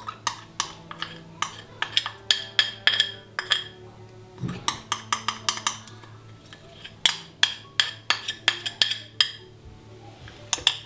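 A kitchen utensil clinking and knocking against a mixing bowl while ingredients go in. It comes as clusters of sharp clinks, several a second, each with a short ring, over a low steady hum.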